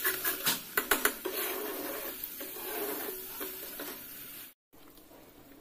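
Metal spoon scraping and clinking against a kadai while stirring thick masala paste as it fries, with sharp knocks in the first second or so. The sound cuts off abruptly about four and a half seconds in.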